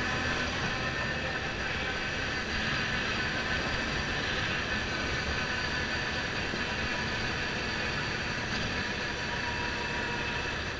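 Motorbike riding over a cobblestone road: its engine runs steadily under a dense rumble of road and wind noise.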